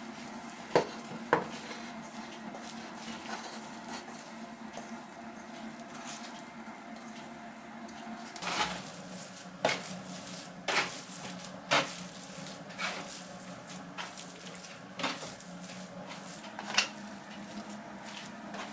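Dishes and metal cutlery clinking: two sharp clinks about a second in, then, from about halfway, a run of clinks and scrapes roughly once a second.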